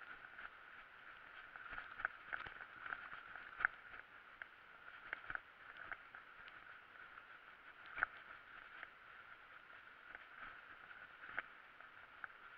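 Mountain bike rolling over a bumpy grass and dirt trail: a steady muffled hiss with irregular knocks and rattles from the bike, the sharpest a little past a quarter of the way in and again about two-thirds in.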